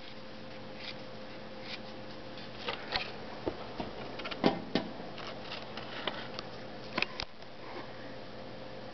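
Scattered light taps, clicks and rustles as a paper receipt is worked against a stovetop to nudge a bed bug, the loudest about halfway through and again about two thirds in, over a steady low hum.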